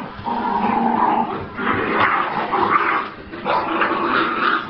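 Jack Russell terriers growling in a tug-of-war over a shoe, a near-continuous rasping growl that breaks off briefly twice.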